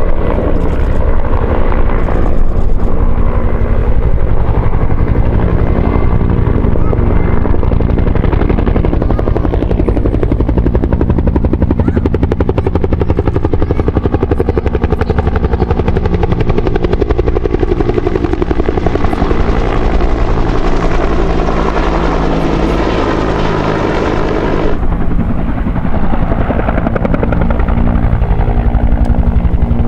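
Two Bell UH-1H Huey helicopters flying past in formation, their two-bladed main rotors beating rapidly and steadily over their turbine engines. The sound turns abruptly duller near the end.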